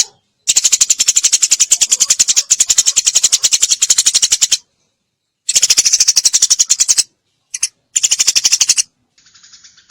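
Eurasian tree sparrow chirping in rapid-fire trains of sharp chirps, about nine a second, in several loud bursts with short breaks between them. Near the end the chirping turns fainter and thinner.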